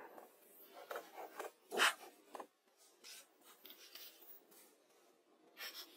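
Stones scraping and grating against one another in a run of short strokes, the loudest a little under two seconds in, with another burst near the end.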